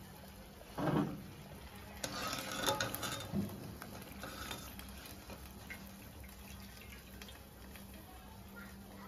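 Wire-mesh skimmer scraping and clinking against a metal frying pan as fried badusha are lifted out of the hot oil. There is a single knock about a second in, and the clinks are densest from about two to three and a half seconds in.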